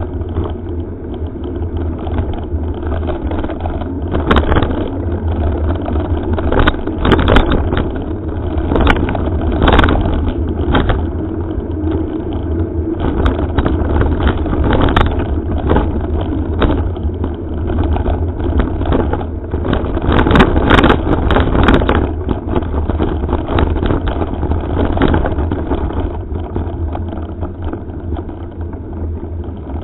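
Mountain bike riding over a gravel forest road, heard from a helmet-mounted camera: steady wind buffeting on the microphone and tyre noise on the gravel, with scattered knocks and rattles as the bike and camera are jolted over bumps.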